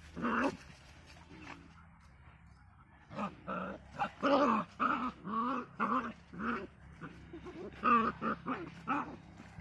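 Puppies play-fighting, growling and yapping: a short burst at the start, then after a pause a quick string of short growls and yaps from about three seconds in.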